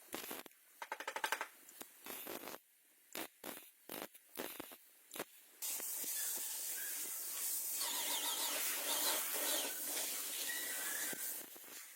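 Irregular taps and clicks of tools with a brief fast rattle, then about halfway through a steady hiss of compressed air starts and runs for about six seconds before dying away.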